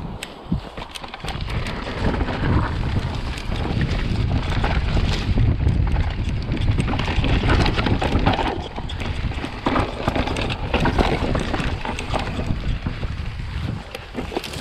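Wind rushing over the camera microphone as a Vitus Sommet CRX full-suspension mountain bike rattles and clatters down a rough grassy trail, with many short knocks from the bike over the bumps. The rushing grows louder about a second in, as the ride picks up speed.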